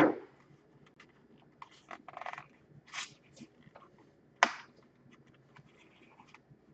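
Scattered light clicks, taps and short scrapes of a laptop's plastic case and parts being handled during reassembly, with one sharper click about four and a half seconds in.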